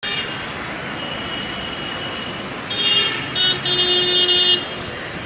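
City street traffic noise with vehicle horns honking: three blasts a little past halfway, the last about a second long.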